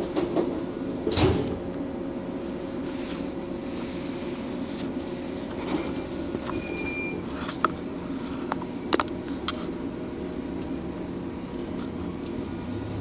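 Inside a JR West 115-series electric motor car standing at a station: a steady low hum from the car's equipment, with a sliding-door thud about a second in and scattered clicks and knocks. A rising motor tone starts right at the end as the train begins to pull away.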